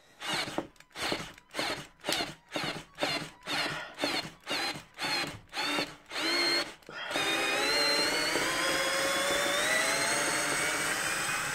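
Cordless drill-driver, a counterfeit Bosch GSR 18-2-LI Plus, working a lag screw in wood: first a run of short trigger bursts, about two to three a second, with the screw seated deep. About seven seconds in it runs steadily with a slowly rising pitch as the screw backs out of the wood.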